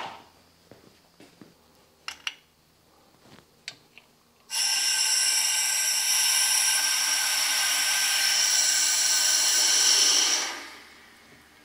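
Compressed shop air hissing through a wall-mounted ball valve into a newly plumbed hose reel line as the system is pressurized. The hiss starts suddenly about four and a half seconds in, holds steady, then fades out as the line fills, after a few light clicks of handling.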